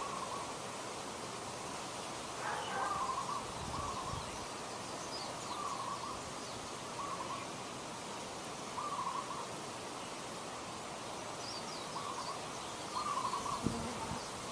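A bird calling over and over: short, wavering calls repeated about every second and a half, over a steady outdoor hiss. Two soft low thumps come about four seconds in and near the end.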